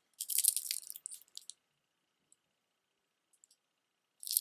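Beaded jewelry clicking and clattering as the pieces are handled, with stone and glass beads knocking together. The clicking lasts about a second and a half, stops, and starts again near the end.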